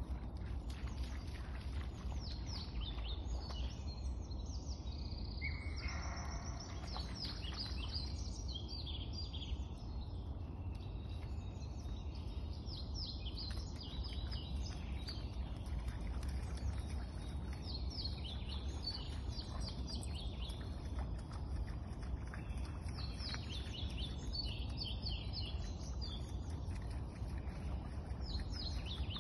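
Several songbirds chirping and singing in quick, overlapping phrases over a steady low rumble.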